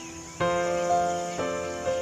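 Background music: piano-like keyboard chords, one struck about half a second in and another about a second later, each ringing and fading.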